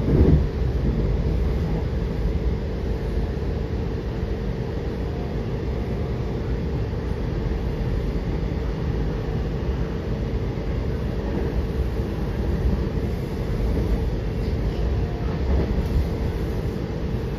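WMATA Metrorail Silver Line train running between stations, heard from inside the car: a steady rumble of wheels on the rails with a low steady hum, and a brief bump right at the start.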